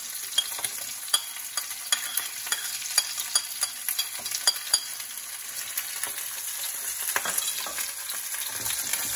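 Ribeye steaks sizzling steadily in butter and oil in a hot frying pan. Over the sizzle come repeated sharp clicks and scrapes of a metal spoon against a plate and the pan as garlic and rosemary are spooned onto the meat, thinning out near the end.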